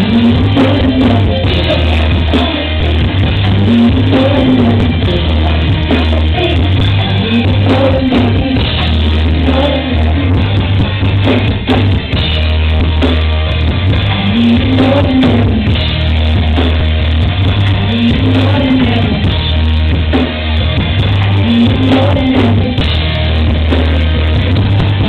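Live pop-rock band playing, with a drum kit and a heavy, boomy bass. A woman is singing into a microphone over it.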